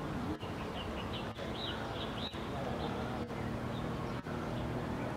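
Outdoor wetland ambience: a steady low hum under a noise bed, with a few faint high chirps from small birds about a third of the way in.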